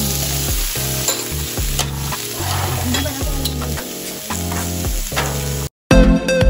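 Raw pork belly, beef and sausages sizzling on a hot electric griddle, a steady frying hiss with a few light clicks. Near the end the sizzle cuts out abruptly and loud electronic dance music with a steady beat takes over.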